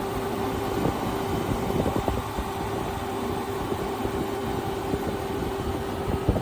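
Midea MAW08HV1CWT inverter window air conditioner running: a steady rush of fan air with a steady hum, and a few light knocks.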